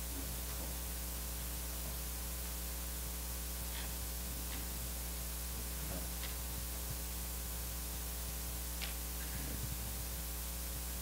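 Steady electrical mains hum with hiss from an open sound system, broken by a few faint clicks.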